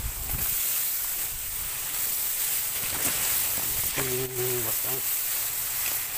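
Tall grass leaves rustling and brushing against the phone as someone pushes through the growth: a steady dry hiss. About four seconds in, a brief hum-like vocal sound from the person comes through.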